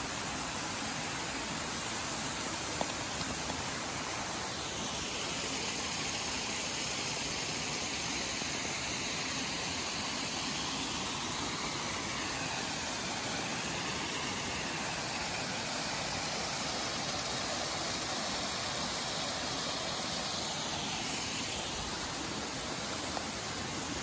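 Steady rush of a waterfall and rocky stream, an even hiss of falling and running water that shifts slightly in tone as the microphone moves.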